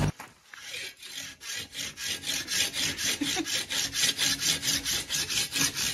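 Large coarse-toothed hand saw cutting through a tree trunk, rasping back and forth in quick, even strokes of about four a second. It starts faint and settles into a steady rhythm after the first second or so.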